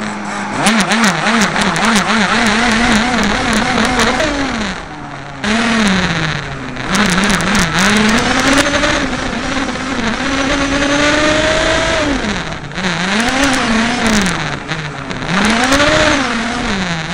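Small petrol two-stroke engine of a 1:5-scale RC racing car, heard close from on board, its pitch rising and falling with the throttle. It is blipped quickly up and down for the first few seconds, then climbs and drops in longer sweeps. Scattered sharp clicks and rattles run through it.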